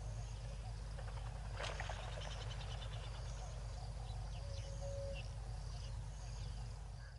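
Evening chorus of frogs and insects at a waterhole: scattered short high chirps and calls over a steady low hum, with a burst of rapid clicking about a second and a half in.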